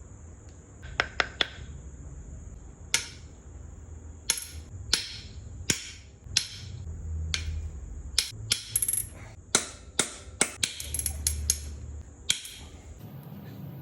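Irregular sharp metallic clinks and taps of hand tools and engine parts striking metal, about two dozen, some in quick runs of three or four, with a steady faint high hiss underneath.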